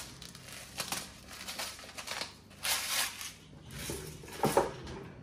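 Salt being added by hand to hummus in a blender cup: several short, crunchy, scraping noises with light clicks.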